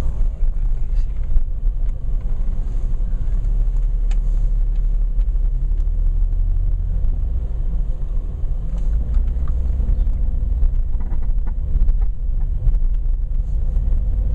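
Steady low rumble of a car's engine and road noise heard from inside the cabin while driving slowly through city streets.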